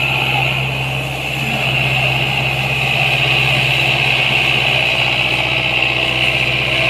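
Belarus 510 tractor's diesel engine running at a steady, unchanging note.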